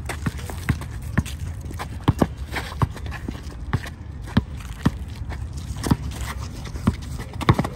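Basketball dribbled on a concrete court: sharp bounces in a steady rhythm, about two a second.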